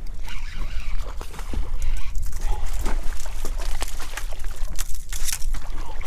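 Water sloshing and trickling beside a small boat's hull over a steady low rumble, with scattered knocks of handling. Near the end comes a splash as a small striped bass is tossed back into the water.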